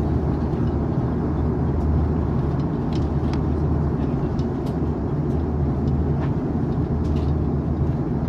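Steady low rumble of cabin noise inside an Airbus A340-300 airliner, engine and airflow noise with a deep hum, and a few faint light clicks.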